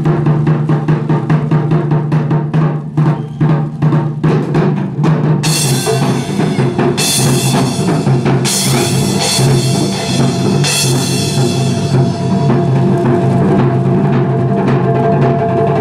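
Japanese taiko ensemble on large barrel-shaped nagado-daiko drums, playing fast, dense drum strokes. From about five and a half seconds in, four ringing crashes sound over the drumming, which a cymbal held by one of the players would make.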